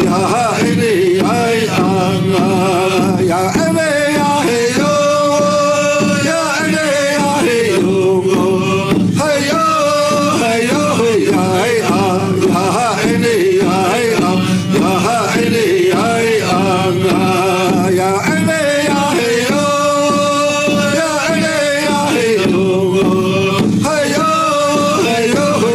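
Recorded song: a man singing in a wavering, chant-like style over steady accompaniment, a sung phrase coming round again about every fourteen seconds.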